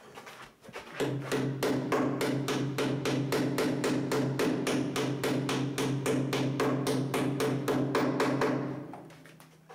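A small hammer tapping pins into the wooden frame of a model boat hull, a rapid, even run of light strikes, about four or five a second, over a steady low hum. The tapping starts about a second in and fades away near the end.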